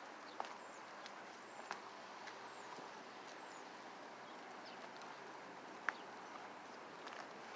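Small birds chirping faintly, a string of short high chirps over a steady low hiss, with a few sharp clicks, one about half a second in and the loudest just before six seconds.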